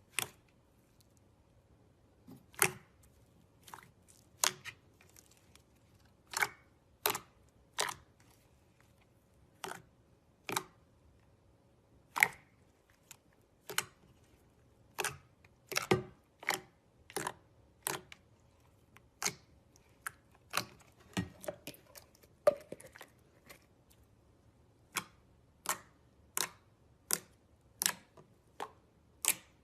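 Slime making sharp clicking pops as trapped air bubbles burst, about one a second at irregular intervals.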